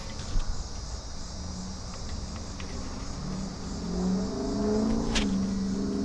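A motor vehicle's engine drone comes in about three seconds in and grows louder, over a steady chirring of insects. A single sharp click near the end.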